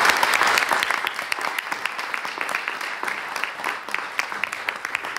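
Audience applauding, loudest at the start and gradually thinning and fading.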